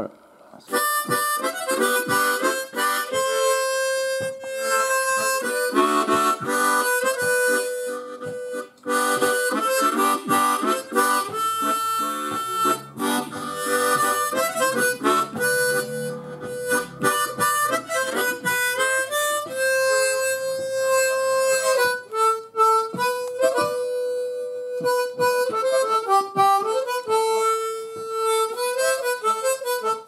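A harmonica playing a tune, with held notes and chords, starting about a second in.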